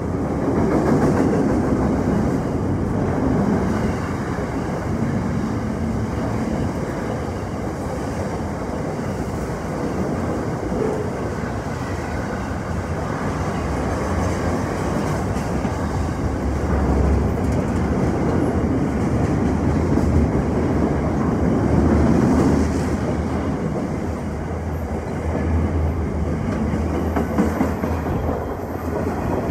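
Freight train wagons rolling past with a steady clatter of wheels over the rail joints and a continuous rumble.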